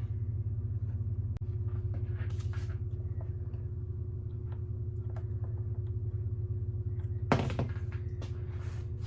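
Small clicks and scratches of a chainsaw's tensioner screw and tensioner piece being worked loose with hand tools, with one louder scrape about seven seconds in, over a steady low hum.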